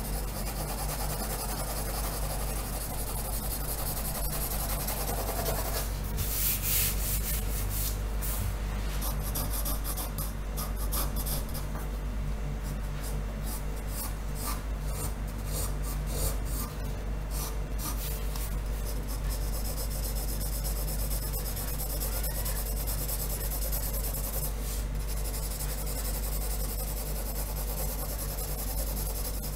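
Pencil lead scratching on paper in quick repeated hatching strokes while a drawing is shaded, over a steady low hum.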